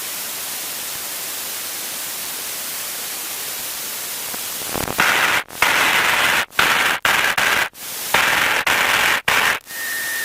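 Steady static hiss on a light aircraft's cockpit intercom recording. About five seconds in, the intercom starts gating on and off, passing short spells of engine and airflow noise during the takeoff run. A short steady tone sounds near the end.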